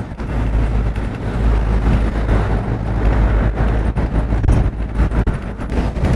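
Tour bus running along the road, heard from on board: a steady, deep engine rumble mixed with road noise.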